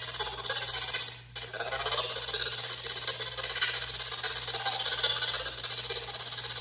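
PSB7-Pro spirit box sweeping the FM band: choppy radio static with chopped-up fragments of broadcast sound, dropping out briefly about a second in, over a steady low hum.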